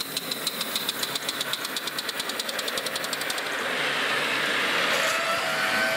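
Live-steam model locomotive running, its exhaust beats coming fast and even, then giving way about three and a half seconds in to a louder hiss of steam. A steady whistle-like tone, rising slightly in pitch, sounds near the end.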